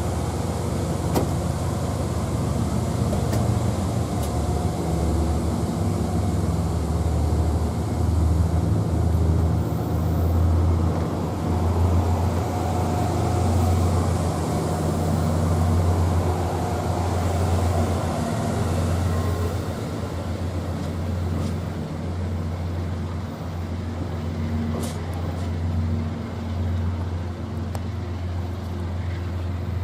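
Diesel locomotive engine running, a steady low drone that swells a little in the middle.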